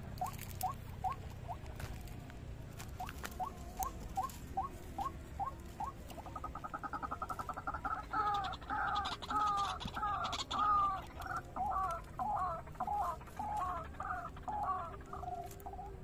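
White-breasted waterhen calling: short notes repeated a couple of times a second, then from about six seconds in a faster, louder run of two-toned notes that stops just before the end. Light rustling and a few faint ticks lie under it.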